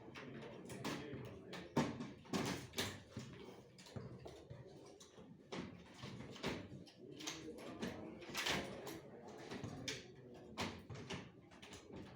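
Irregular clicks, knocks and short scrapes of hard objects being handled, with the loudest knock about two seconds in.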